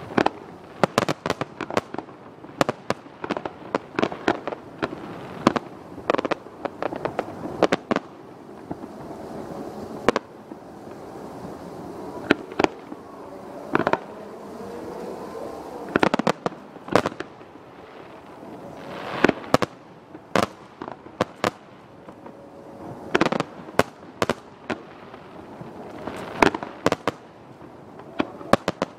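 Aerial fireworks display: shells bursting in quick, irregular bangs over a steady crackle. The bangs come in dense volleys at first, then more spaced out, with single loud reports every few seconds.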